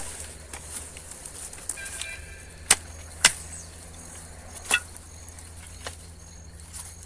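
Sharp knocks and clacks from wood and debris being pulled out and handled while an old animal enclosure is taken apart, four of them loud and spread across a few seconds.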